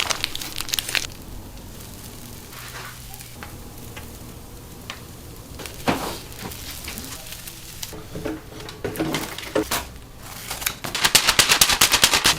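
Bungeoppang being cooked in hot cast-iron fish molds: batter sizzling over a steady low hum, with scattered metal clicks, and a fast, loud run of clicks near the end.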